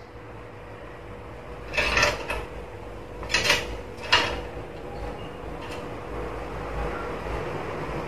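Black-capped lory giving three short, harsh squawks in the first half.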